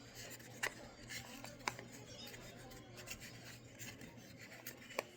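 Faint handling of small miniature-kit parts: light rubbing and scraping, with three sharp clicks, the last near the end, as a piece is fitted into place.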